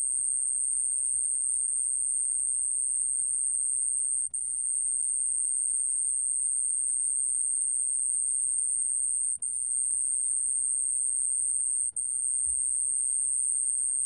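Small bell cricket (좀방울벌레) singing a steady, very high-pitched continuous trill, recorded at 29 °C. It breaks off for a split second three times.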